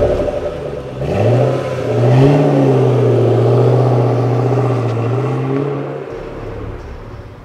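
Ford Shelby GT500's supercharged V8 revving. The engine note rises over about a second, holds high and nearly steady for about four seconds, then drops away suddenly.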